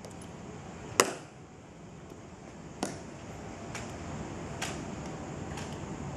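Sharp clicks from ceremonial guards' drill movements on a marble plaza. The loudest comes about a second in and another near three seconds, then fainter clicks follow about once a second, over a low outdoor background.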